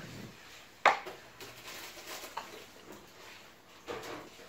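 Dinner plates and dishes being handled on a table: one sharp clink about a second in, then lighter knocks and a small clatter near the end.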